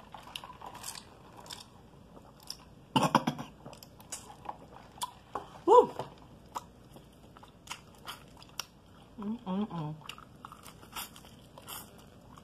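Crunching bites into crispy fried chicken and chewing, heard up close. The loudest crunches come about three seconds in, with a couple of brief vocal sounds later on.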